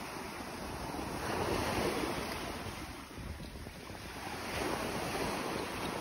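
Small waves breaking and washing up on a sandy beach. Two surges stand out, about a second and a half in and again near the end, with wind rumbling on the microphone underneath.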